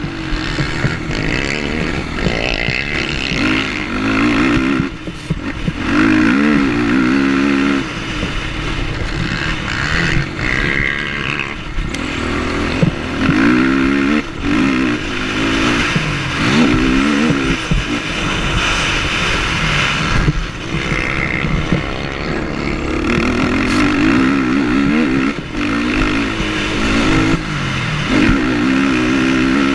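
Motocross quad's engine at racing throttle, revving up in repeated rising sweeps through the gears, with brief drops in loudness where the throttle is shut off, heard from the rider's helmet camera.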